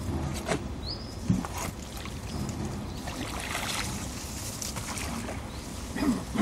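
Water splashing and trickling around a wooden rowboat as a float-lined fishing net is paid out over the side, with a few sharp knocks on the boat, the loudest near the end.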